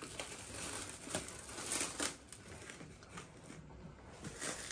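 Packaging crinkling and rustling as it is handled and unwrapped, with a few soft knocks.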